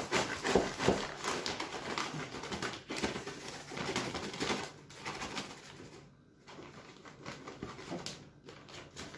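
Plastic bag rustling and crinkling as a ladle scoops through moist hemp seed bait mix inside it, irregular and busier in the first half, quieter after about five seconds.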